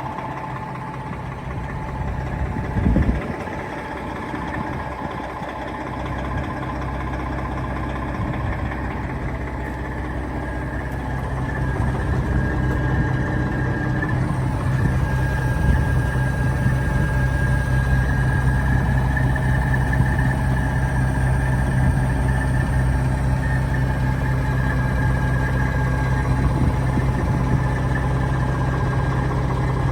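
Detroit Diesel Series 60 inline-six diesel in a 1998 Peterbilt 378 dump truck idling steadily, its low hum growing louder about twelve seconds in. A brief thump about three seconds in.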